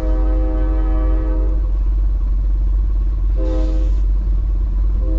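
Locomotive horn sounding a long blast, a short blast and another long blast, a steady multi-note chord, over a steady low rumble.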